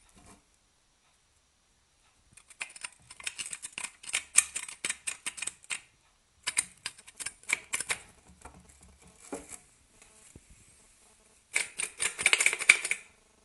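Loose projector (DE) lens rattling inside a Suzuki TL1000R headlight housing, in three bursts of rapid light clicking with pauses between. The clatter is the sign that the lens has come loose in its mount.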